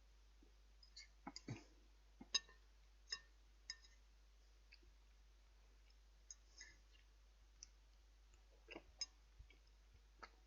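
Cutlery clicking and clinking against a dish as a meal is eaten: about a dozen light, irregular strikes, a few with a short ring.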